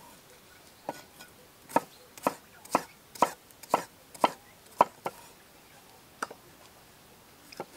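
A large curved-blade knife chopping a cucumber on a wooden cutting board: a regular run of sharp chops, about two a second, then a few slower, spaced cuts near the end.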